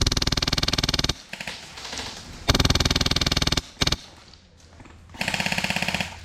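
Airsoft rifle firing on full auto: three long bursts of rapid, evenly spaced shots of about a second each, with a very short burst between the second and third.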